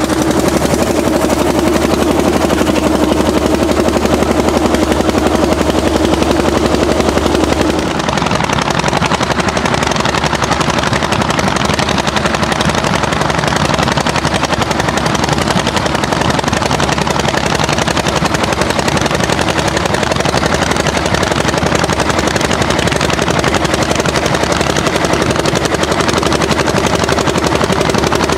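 Orsi Argo hot-bulb tractor's single-cylinder two-stroke engine pulling a plough under load, firing in a loud, fast, steady run of hard beats. Its tone shifts about eight seconds in.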